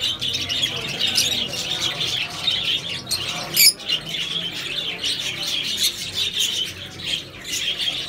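A group of caged peach-faced lovebirds chattering with a constant stream of short shrill chirps and squawks. One louder screech comes about three and a half seconds in.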